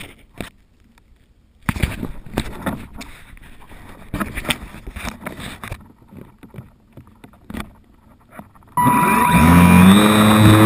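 Scattered knocks, clicks and rustling as the plane with the camera on it is handled. About nine seconds in, the HobbyZone Super Cub's electric motor and propeller start up, rising quickly in pitch and then running at a steady, loud pitch.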